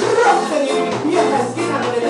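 Loud live band music with singing.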